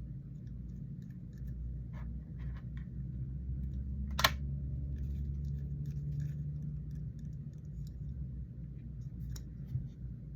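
Scattered soft clicks and scratches of a fidget toy being handled close to the microphone, with one sharp click about four seconds in, over a steady low hum.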